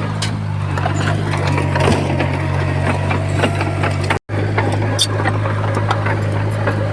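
Komatsu bulldozer's diesel engine running steadily at a low even pitch, with scattered metallic clanks and rattles. The sound cuts out for an instant a little past four seconds in.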